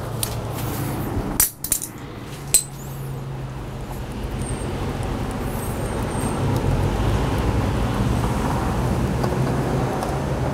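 A few sharp metallic clicks and clinks in the first few seconds as the oil filter and filter wrench are handled on a four-stroke outboard engine, then a steady low hum in the background while the filter is unscrewed by hand.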